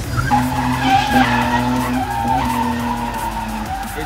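Nissan R31 Skyline drift car sliding through a corner: steady tyre squeal over the engine running hard.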